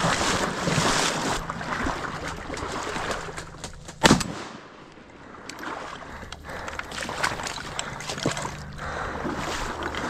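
Water splashing and sloshing as a small boat is paddled along a creek, loudest in the first couple of seconds, with a single sharp knock about four seconds in.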